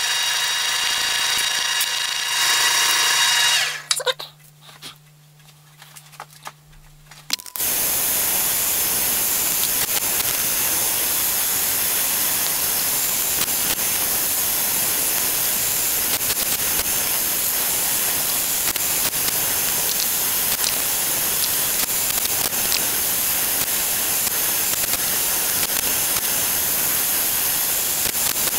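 Deckel FP1 milling machine with a 10 mm end mill cutting copper plate. For the first few seconds there is a whine of several steady tones. Then the sound drops much quieter for about three seconds, and from about seven seconds in a steady, noisy cutting sound runs on.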